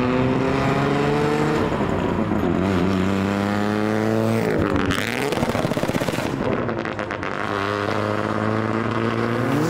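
Mazda RX-7 accelerating hard past, its engine pitch climbing, dropping at a gear change about a second and a half in, climbing again, then falling as the car passes about halfway through and pulls away.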